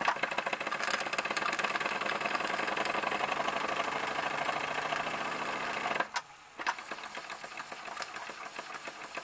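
Toy live-steam engine with a single horizontal cylinder, running fast with a rapid, even chuffing and clatter. It cuts out briefly about six seconds in, then picks up again more quietly.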